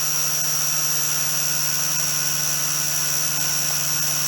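Multirotor drone's electric motors and propellers spinning at a steady speed on the ground, a constant high whine over a lower hum.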